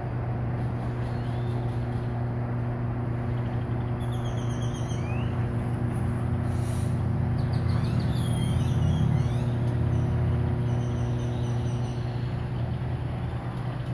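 Rotisserie corn roaster turning its racks, its drive motor giving a steady low hum that swells slightly about two thirds of the way in. Birds chirp now and then.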